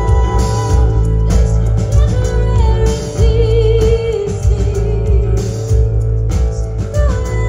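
A rock band playing live: electric guitars over bass and drums, with a woman singing.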